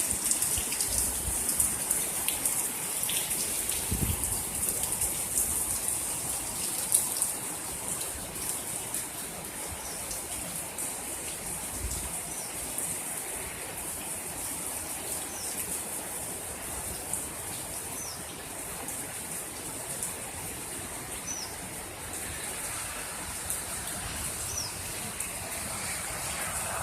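Heavy rain falling steadily. From about halfway through, a bird gives a short, high, falling chirp about every three seconds, and a couple of dull thumps come early on.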